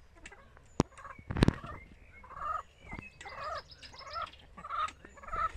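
Hybrid laying hens clucking, short pitched calls coming one after another from about two seconds in. Two sharp knocks come in the first second and a half.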